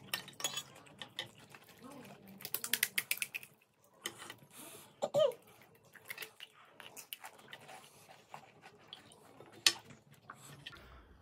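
Crisp, hollow panipuri shells cracking and crunching as they are poked open with spoons and bitten, heard as scattered sharp crackles with a quick dense run about two to three seconds in.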